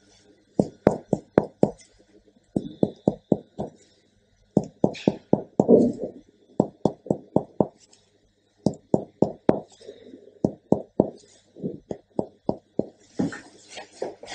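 Chest percussion: a fingertip striking the middle finger laid flat in the gap between the ribs, in short runs of three to five taps about four a second, with pauses between runs as the hand moves to another spot. The taps are the percussion step of a lung exam, done on both sides to compare a resonant note (air) with a dull one (fluid).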